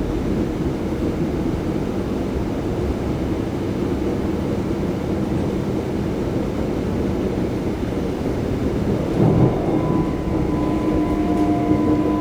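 Passenger train running on the rails, a steady low rumble heard from inside the car. Near the end a steady whine of several tones comes in over the rumble as the train nears the station.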